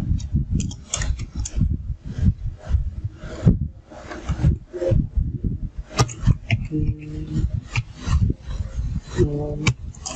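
Typing on a computer keyboard: irregular clicks and scraping, with a brief murmured hum of voice twice in the second half.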